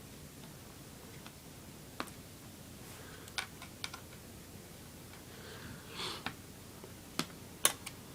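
Scattered light clicks and taps of a small screwdriver and plastic laptop parts being handled while screws are taken out from inside a laptop, with a short scrape about six seconds in.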